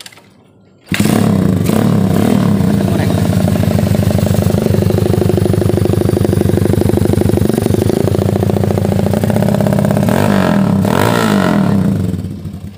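Custom Honda GL motorcycle's single-cylinder four-stroke engine, built on a Mega Pro block with a PWK 33 carburettor, kick-started and catching about a second in, then running loud and steady through the open exhaust. The revs rise and fall in a couple of throttle blips near the end.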